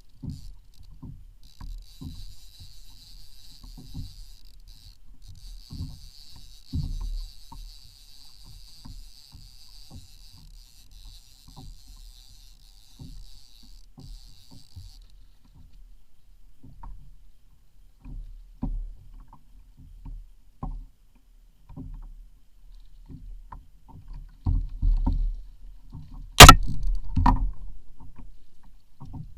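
Kayak being paddled: paddle strokes in the water with irregular low knocks and thumps against the hull. Near the end there is a single sharp, loud knock.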